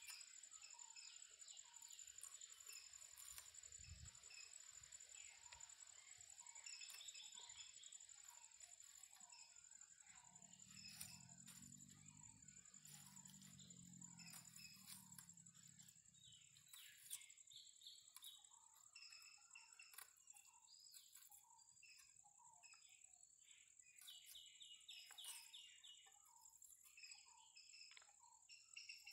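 Faint outdoor ambience: a steady high-pitched insect drone with scattered bird chirps throughout, and a low hum that swells and fades in the middle.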